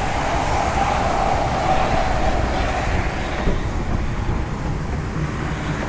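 Train of Amtrak bi-level passenger cars rolling slowly past, its wheels rumbling steadily on the rails. A higher band of rolling noise fades out about three seconds in.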